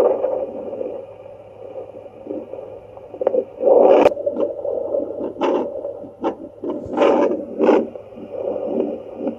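Handheld fetal Doppler's speaker putting out a steady hiss and low hum, broken by irregular scraping swishes as the probe moves.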